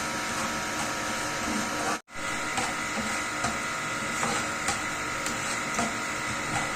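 A steady hum and hiss under light, scattered clicks of a spoon in a pan, as sugar with black pepper, turmeric and a little water is heated and stirred until the sugar dissolves. The sound cuts out for a moment about two seconds in.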